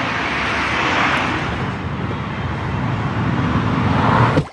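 Loud steady roar of vehicle noise, swelling near the end and cutting off suddenly.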